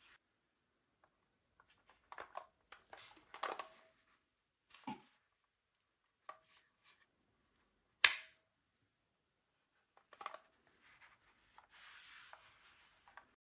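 Keyboard unboxing handling: scattered clicks and light knocks of packaging and parts being moved, a soft thud about five seconds in, one loud sharp click about eight seconds in, and a brief rustle near the end.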